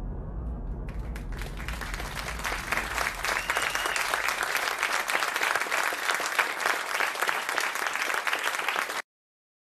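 Studio audience applauding, a dense crackle of clapping that starts about a second in over the fading low end of the song's music, then cuts off abruptly near the end.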